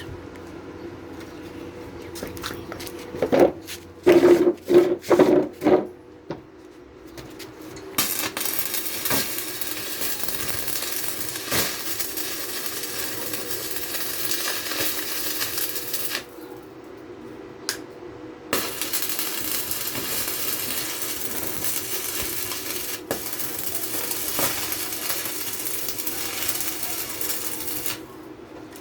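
Metal struck sharply about half a dozen times, ringing. Then two long spells of electric arc welding, each a steady crackling hiss that starts and stops abruptly, about eight and ten seconds long.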